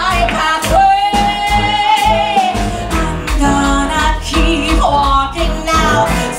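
A woman singing with a live band of piano, bass, drums and guitar, with one long held note about a second in.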